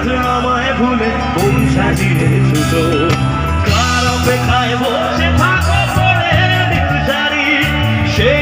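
Loud live music through a stage sound system: a man singing into a handheld microphone over backing music with bass and a steady drum beat.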